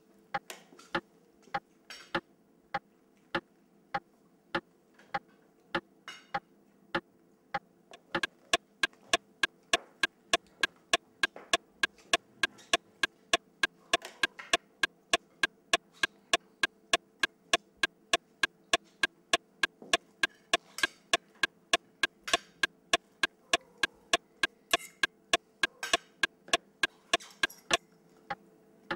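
Clock ticking, sparse and uneven at first, then about eight seconds in becoming loud and fast at nearly three ticks a second before breaking off near the end. A low steady hum runs underneath.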